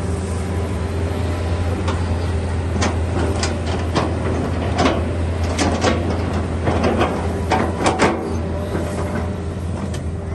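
Hitachi excavator's diesel engine running steadily, with irregular metallic clanks and knocks over it.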